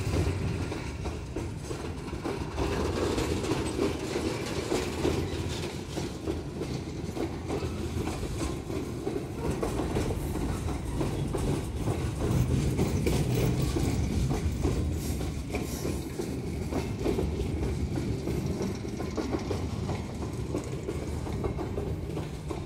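Loaded freight cars rolling past on the rails: a steady low rumble of wheels, with repeated clicks and knocks as the wheels cross rail joints.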